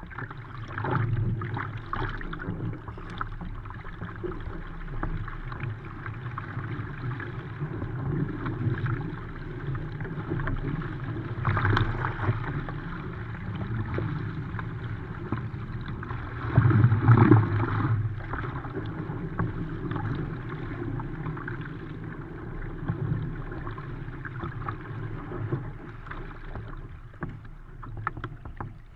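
Continuous rush and slap of choppy seawater along the hull of a Fenn Bluefin S surfski under way, with the irregular splash of paddle blades entering the water on each stroke. The water noise surges louder several times, most strongly a little past halfway.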